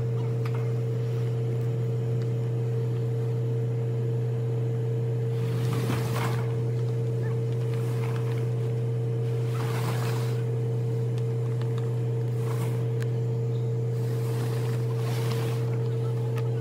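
An engine running steadily at an unchanging pitch, with several brief rushes of noise over it.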